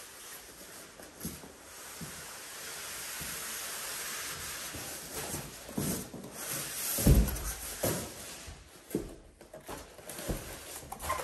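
Large cardboard box packaging rubbing and sliding as its panels and insert are lifted out, followed by several dull thumps of cardboard, the loudest about seven seconds in.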